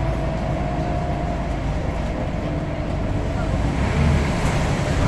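Scania N94UD OmniDekka double-decker bus running on the move, a steady low engine and drivetrain rumble that grows louder about four seconds in.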